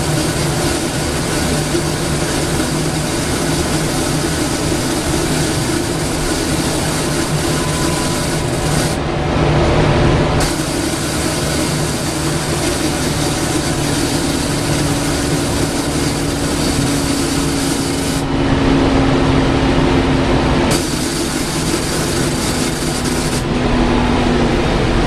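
Inside a Volvo B7TL double-decker bus on the move: steady diesel engine and running noise with a held tone that appears in the middle stretch, and louder surges twice.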